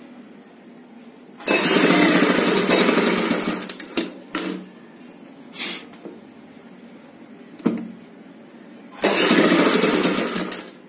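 Black straight-stitch sewing machine stitching piping onto a satin blouse neckline. It runs in two long bursts of about two seconds each, one starting about a second and a half in and one near the end, with a few short stitch bursts between them.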